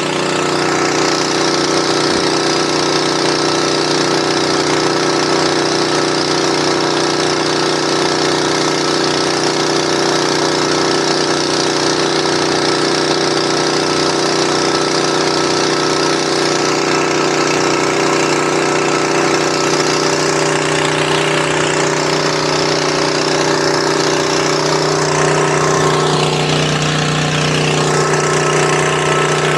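Small gasoline engine of a portable dewatering pump running steadily at full throttle, with the rush of water from its discharge, as it pumps out a swamped boat.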